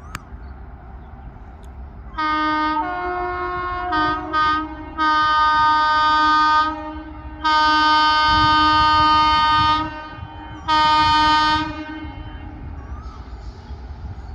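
Indian Railways train horn sounding in a string of blasts over the low rumble of the running train. There is a first blast that drops in pitch partway, two short toots, then three long blasts.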